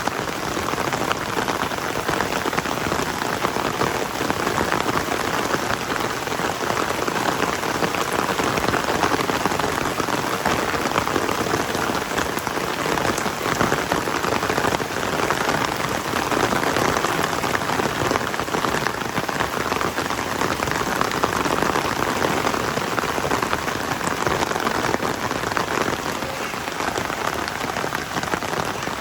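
Heavy rain falling steadily, a dense even patter of drops on surfaces.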